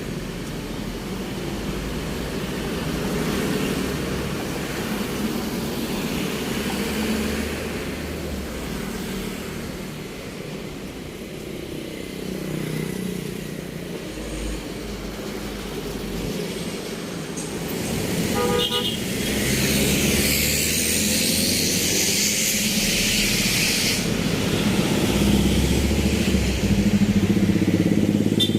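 Main-road traffic: a steady rumble of passing vehicle engines, with a short car horn toot a little past the middle. Right after the toot a louder hiss of a passing vehicle lasts a few seconds and cuts off suddenly.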